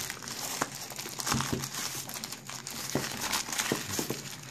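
A plastic postal mailer bag crinkling as hands pull it open around a box, an irregular run of crackles.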